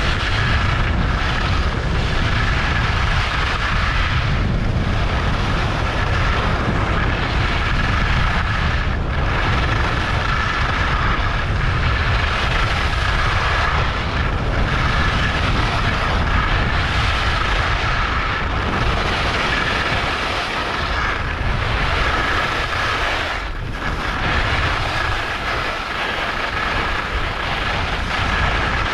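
Wind rushing over the microphone and skis hissing and scraping on the snow during a downhill run: a loud, steady rush with a deep rumble that eases briefly now and then.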